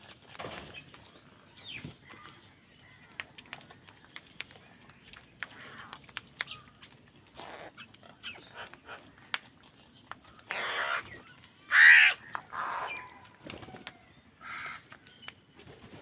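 Crows calling in short, harsh caws, spaced out at first, with the loudest run of calls about eleven to thirteen seconds in. Small clicks and taps are scattered between the calls.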